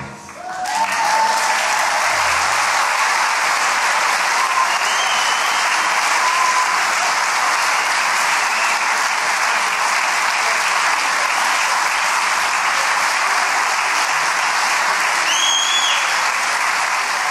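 Audience applause that builds within the first second and then holds steady. Two short high whistles rise over it, one about five seconds in and a louder one near the end.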